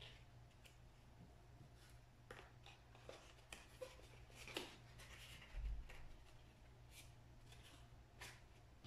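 Near silence, with faint rustles and light taps of paper plates being handled, and one soft low thump a little past halfway.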